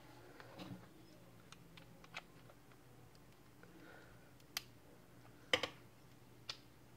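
A few faint, scattered clicks and light knocks of handling as an AC adapter's plug is worked into a portable radio, the sharpest about two-thirds of the way through, over a low steady hum.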